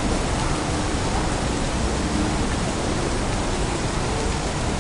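Steady, even hiss of a rainy city street, with no distinct events.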